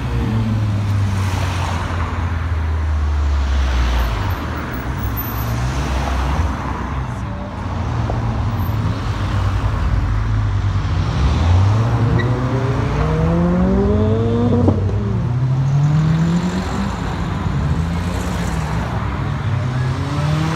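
Car engines running, then a car accelerating hard: its engine note climbs steeply, drops at a gear change, and climbs again.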